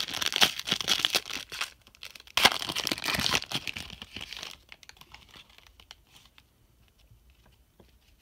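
Shiny foil wrapper of a football trading-card pack crinkling and tearing as it is ripped open by hand, with a fresh loud tear about two and a half seconds in. The rustling dies away after about four and a half seconds, leaving only faint ticks.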